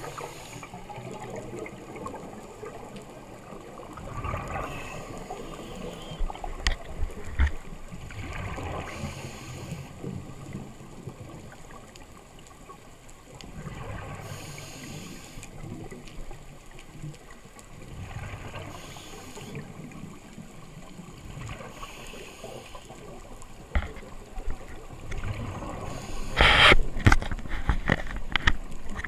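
Scuba diver breathing through a regulator underwater: a short hiss of inhalation about every five seconds, with a gurgle of exhaled bubbles in between. Near the end, a loud rush of bubbles passes close to the camera.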